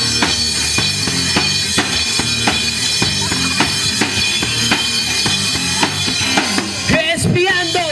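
Live rock band playing an instrumental passage: a drum kit keeping a steady beat of bass drum and snare under electric guitar and bass. A voice starts to come in near the end.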